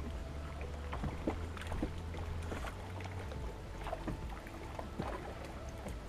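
Wind buffeting the microphone as a steady low rumble, with water lapping against a small fishing boat's hull and scattered small knocks and clicks from the boat.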